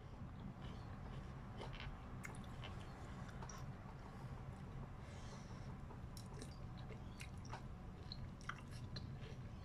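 A person eating chicken noodles close to the microphone, chewing mouthfuls, with scattered small clicks and smacks over a steady low hum.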